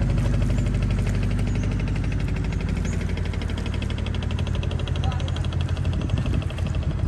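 A small motorboat's engine running steadily at low speed, with a fast, even pulsing beat.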